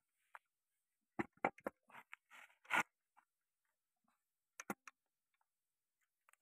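Scattered light knocks, clicks and scrapes of metal being handled as a hydraulic distributor (control valve block) is fitted onto a Mahindra Novo 605 tractor's hydraulic lift cover: a cluster of knocks and scrapes between about one and three seconds in, then two sharp clicks a little later.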